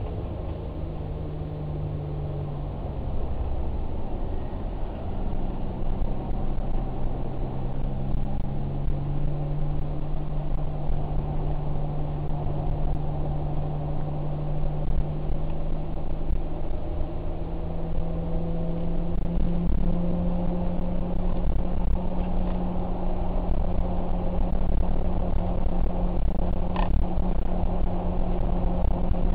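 A vehicle engine running steadily under a low rumble, its pitch creeping slowly upward. A brief high tone sounds near the end.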